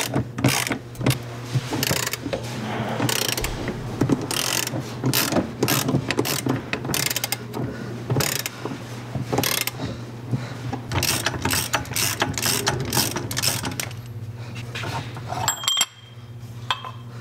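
Socket ratchet clicking in repeated strokes as it turns the forcing screw of a C-frame ball joint press, pressing a new rear ball joint into the wheel carrier. The clicking thins out near the end.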